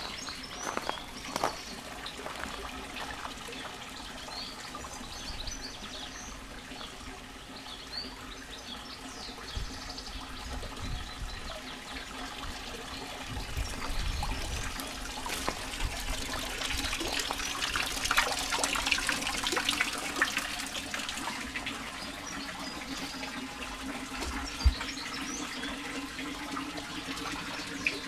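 Water trickling from a wall spout into a stone trough, swelling for several seconds in the middle and then easing off, with birds chirping now and then.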